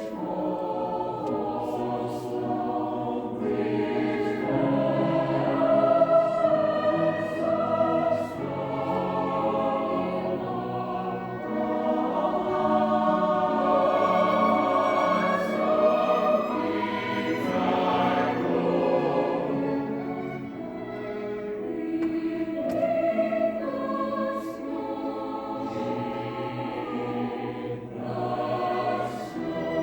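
A choir singing a classical choral piece, with instrumental accompaniment, in phrases that swell and ease.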